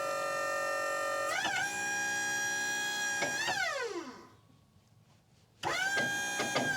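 Hydraulic pump motor of a Wood-Mizer LT40 Wide sawmill whining in bursts as the log-handling hydraulics are worked. The whine steps in pitch as the load changes, winds down with a falling pitch and stops, then starts up again abruptly.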